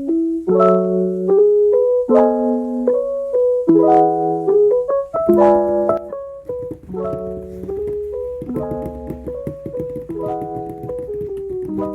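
Background music: piano or electric piano playing repeated chords, softer in the second half.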